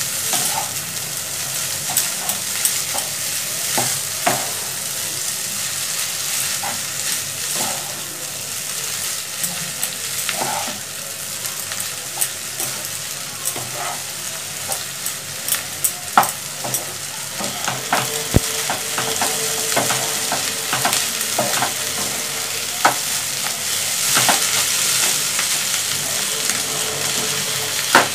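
Egg noodles sizzling as they are stir-fried in a hot nonstick pan, with a spatula scraping through them and knocking against the pan at irregular moments over a steady hiss of frying.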